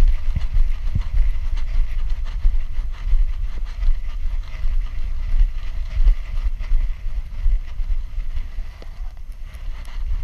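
Wind buffeting the microphone of a GoPro strapped to a walking Doberman's back, a loud uneven rumble, with knocks from the dog's movement jolting the camera. It eases off briefly near the end.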